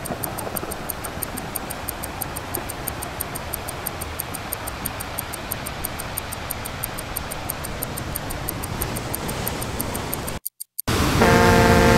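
Intro sound bed: a steady rushing noise with a fast, even ticking through it. It cuts out for about half a second near the end, then a loud, steady multi-tone horn blast begins.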